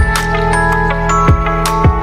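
Background music: sustained chords over a steady thumping beat, about one beat every 0.6 seconds.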